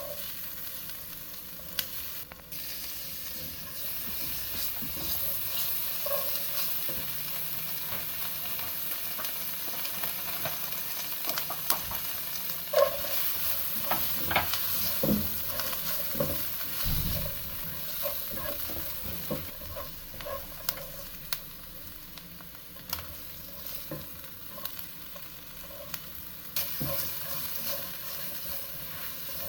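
Food sizzling in a hot pan while a utensil stirs it, with scattered sharp clicks and scrapes of the utensil against the pan.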